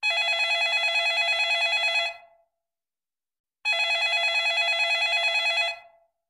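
Telephone ringtone ringing twice, each ring about two seconds long with a fast warbling trill, separated by a pause of under two seconds.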